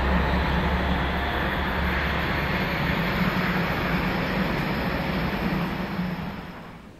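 Steam-hauled special train climbing a grade: DRG class 01 Pacific steam locomotive 01 150 with nine coaches and a diesel pushing at the rear, heard as a steady, loud rumble that fades out near the end.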